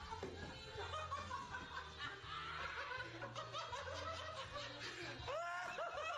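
People laughing uncontrollably, breaking near the end into rapid, wheezing bursts of laughter several times a second.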